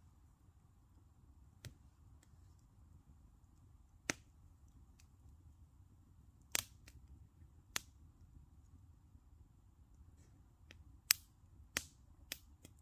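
Small wood campfire crackling: sharp, irregular pops, spaced a second or two apart and bunching together near the end, over a faint low background rumble.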